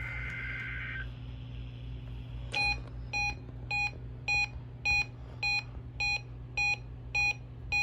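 A weather radio receiving a Required Weekly Test: a shrill two-tone data burst ends about a second in. After a short gap, the radio's alert beeper starts beeping steadily, a little under twice a second. A low steady hum runs underneath.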